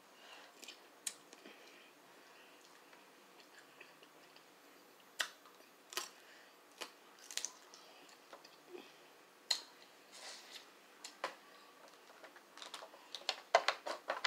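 Crab legs being eaten by hand: scattered sharp cracks and snaps of shell with chewing in between, coming thick and fast near the end.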